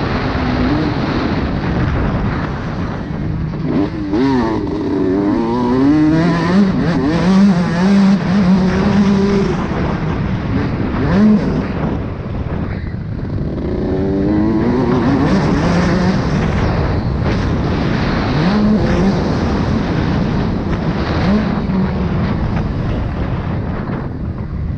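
Motocross bike engine heard from an onboard camera, revving up and down with wind rushing over the microphone; its pitch climbs and drops several times as the rider accelerates and backs off.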